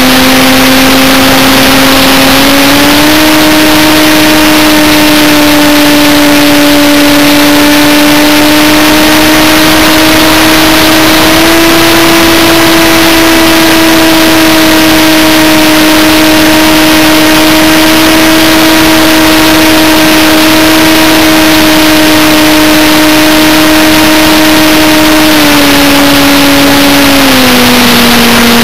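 Radio-controlled model aircraft's motor and propeller whining loudly close to the onboard camera, one steady pitch over a hiss. The pitch steps up about three seconds in and again near the middle as the throttle opens, then drops back twice near the end.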